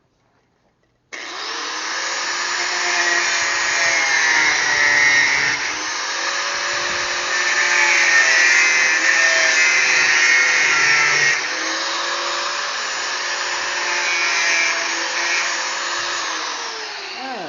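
Electric power tool motor switched on, running loud and steady with its pitch dipping and recovering several times as it is loaded, then switched off and spinning down near the end.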